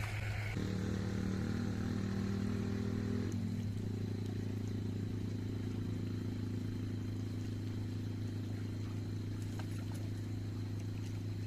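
A steady low motor drone, with a second, higher engine note over it for the first few seconds that then drops away.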